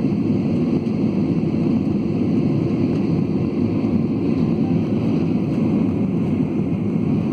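Airliner taking off, a steady low rumble of engine and airflow noise with no change in level or pitch.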